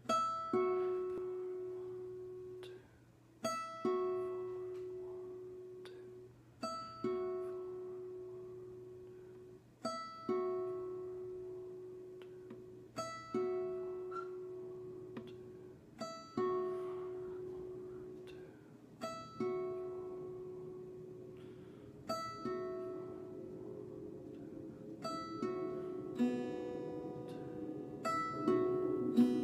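Acoustic guitar, fingerpicked: a sharp pluck followed by a single ringing note left to fade, repeated about every three seconds. Near the end the notes come faster and overlap into a fuller texture.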